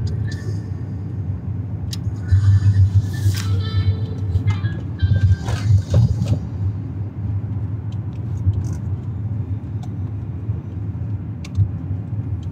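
Low steady rumble of a car heard from inside the cabin, with a few short louder noises between about two and six seconds in.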